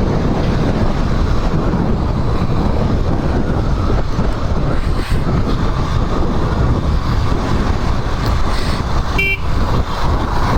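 Motorcycle ridden at speed, a Royal Enfield Himalayan 411: steady wind and road noise with the engine underneath. About nine seconds in there is one short horn toot.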